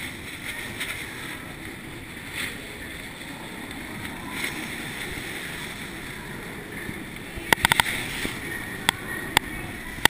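Skis sliding and scraping over snow during a downhill run, with wind noise on the camera microphone. A quick run of sharp clicks comes about seven and a half seconds in, followed by a few single clicks.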